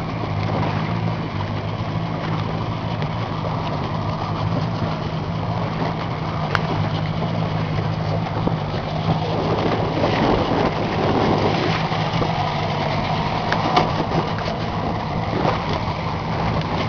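Boat engine running steadily at low revs, a constant low hum over an even rushing noise, with a couple of faint clicks.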